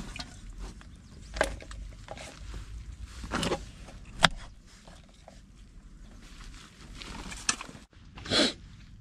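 A kitchen knife cutting green beans on a wooden chopping board: a few separate sharp knocks of the blade on the board, the loudest about four seconds in. Near the end comes a short crisp snap as pea pods are shelled by hand.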